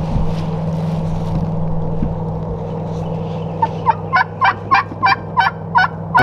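Turkey yelping: a regular series of about ten sharp calls, roughly three a second, starting a little past halfway, over a steady low hum.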